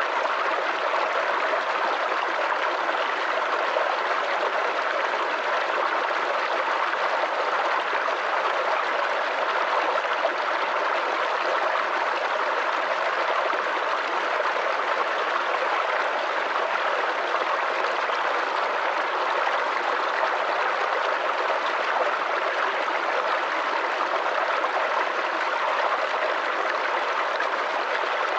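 Small forest brook babbling and gurgling over stones, a steady, unbroken rush of running water.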